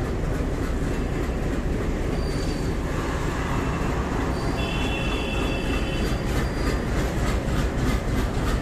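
A train running on the tracks at a railway station: a steady rumble, with a faint high squeal of wheels about five seconds in.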